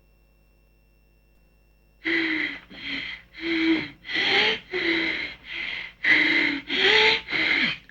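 About two seconds of near silence, then a heavy-breathing sound effect: nine quick, noisy breaths at roughly two a second, some with a voiced gasp.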